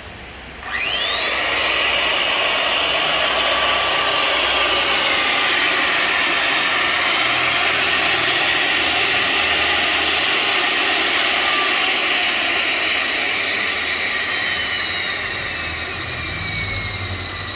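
A Makita 1150 W, 100 V corded power tool switched on about a second in. Its electric motor spins up with a brief rising whine, runs loud and steady with no load, then begins to slow with a falling whine near the end.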